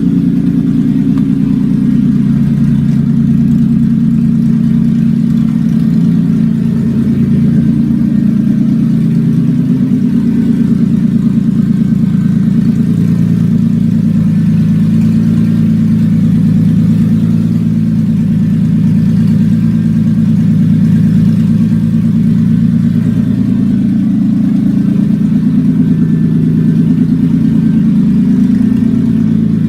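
1997 Toyota Avalon's 3.0-litre V6 idling loudly and steadily through open exhaust manifolds, with no mufflers. It has a deep, even exhaust note.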